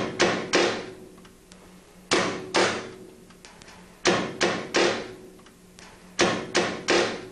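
Heavy pounding on a wooden door: loud knocks in groups of two or three, one group about every two seconds.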